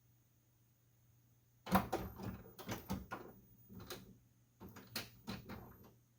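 Epson WorkForce WF-7720 inkjet printer's internal mechanism starting up. Starting suddenly nearly two seconds in, it gives a run of irregular clicks, knocks and crunchy grinding, the kind of noise the owner finds worrying after fitting a replacement waste ink pump unit.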